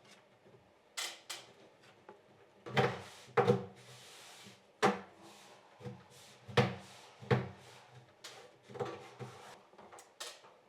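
Irregular wooden knocks and clunks, about a dozen over the stretch, with a brief scraping hiss about four seconds in: hands working on wooden wardrobe cabinetry.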